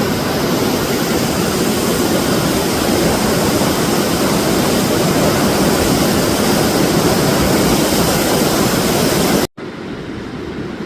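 Steady, loud rush of the Spokane River's rapids. It cuts off abruptly about nine and a half seconds in and comes back much quieter.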